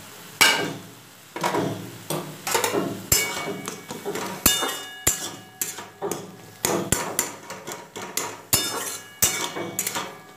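Metal spatula knocking and scraping against a metal wok (kadai) while stirring and mashing softened chopped tomatoes. It makes a string of sharp, irregular clanks, some ringing briefly.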